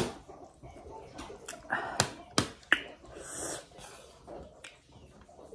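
Metal spoon scraping and clinking against a plate while scooping rice and potato curry, with one sharp click at the start and three more about two to three seconds in. Chewing noises fill the gaps between.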